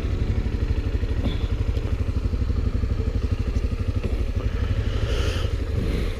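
A vehicle engine running steadily with an even, low pulsing, and a brief rush of higher noise about five seconds in.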